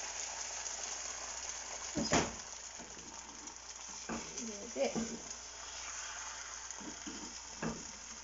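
Beaten egg sizzling steadily in hot oil in a frying pan. There is a sharp knock about two seconds in, and a few lighter taps and scrapes as chopsticks spread the egg around the pan.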